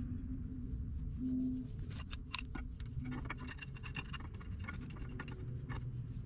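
Light metallic clicks and scrapes from black steel gas pipe being handled and turned by hand against its fittings. The clicks come thickly from about two seconds in, over a low steady rumble.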